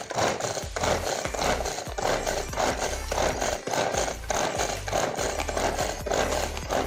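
Hand-operated vegetable chopper worked in quick repeated strokes, its blades whirring and chopping vegetables inside the bowl, about two strokes a second.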